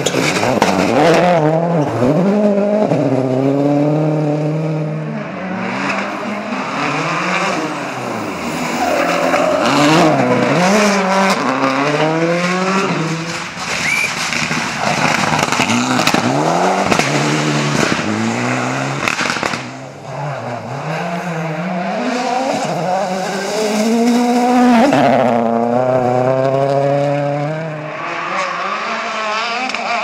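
Rally cars, among them a Ford Focus RS WRC and a Mitsubishi Lancer Evolution X, passing one after another at full throttle. Their engines rev up and fall away again and again through quick gear changes, over tyre and gravel noise.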